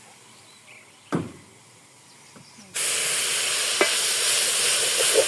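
Food sizzling in hot oil in a cooking pot, a loud steady hiss that starts abruptly a little over halfway through, with a few crackles. About a second in there is a single knock.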